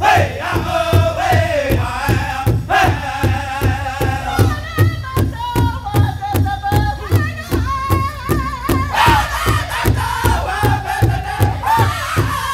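Powwow drum group singing an intertribal song: several men singing together in high voices over a large shared drum struck in a steady, even unison beat.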